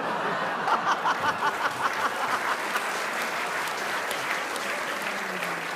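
Studio audience applauding and laughing in response to a punchline, a dense steady patter of many hands clapping.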